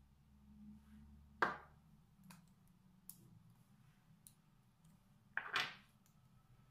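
Lipstick tubes being handled: a few faint clicks, with two brief louder sounds, one about a second and a half in and one near the end, over a low steady room hum.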